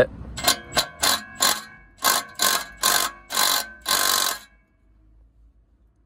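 Cordless impact wrench hammering on a rust-seized exhaust flange bolt in about nine short trigger bursts, the last one longer, stopping about four and a half seconds in. The bolt does not budge.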